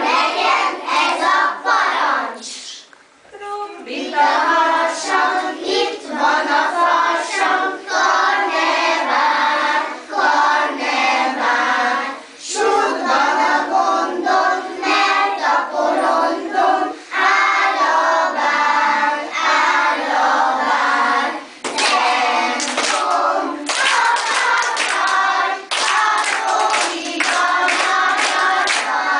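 A group of young children singing a song together and clapping along; the claps come through most plainly in the last several seconds.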